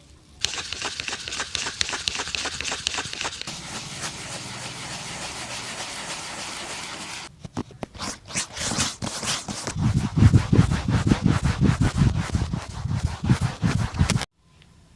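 Rapid brush strokes scrubbing over a shoe for about seven seconds, then heavier, irregular strokes with a deeper rubbing sound, stopping abruptly near the end.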